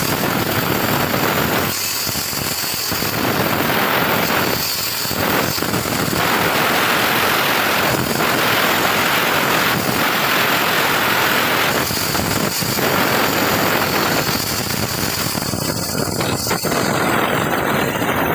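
A woodworking power tool running continuously and loudly, its sound dipping briefly now and then as the load on it changes.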